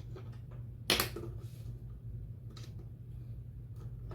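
Small clicks and taps of hands working a cable connector on a TV's internal circuit board, with one sharper click about a second in, over a steady low hum.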